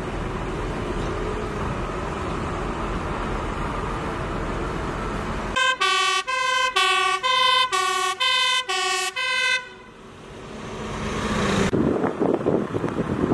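Fire engine's two-tone siren, switching quickly back and forth between a low and a high note for about four seconds, then cutting off abruptly. Before it there is steady traffic rumble; after it, a rising rush and wind buffeting the microphone.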